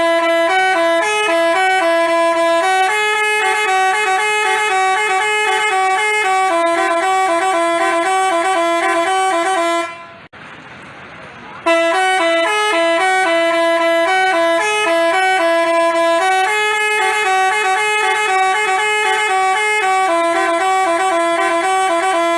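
Basuri telolet bus horn playing a melody in stepping, sustained notes. About halfway through it breaks off for a moment with a faint hiss, then plays the same tune again.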